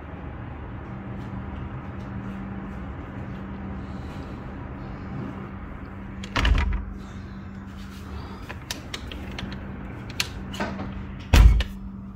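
Steady hum and the noise of distant road traffic heard from high up, with a few sharp clicks and two loud knocks, one about six seconds in and one just before the end.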